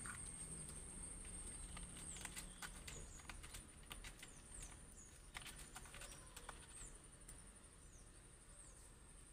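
Faint ambience: a steady high-pitched insect drone of crickets, with scattered soft clicks and short falling chirps every second or so.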